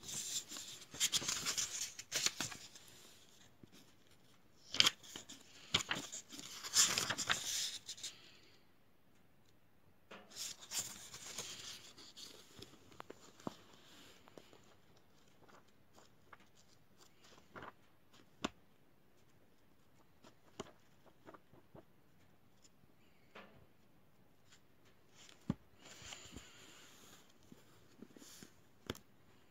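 Paper handled by hand: bursts of crisp rustling and sliding, with scattered light clicks and taps between them.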